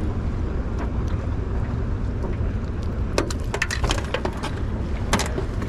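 Steady low rumble of a fishing boat on the river, with irregular sharp clicks and knocks: a cluster about three seconds in and more near the end.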